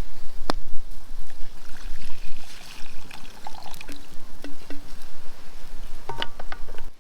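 Water being poured from a bottle into a pot, trickling, with a few light knocks and clinks of the containers.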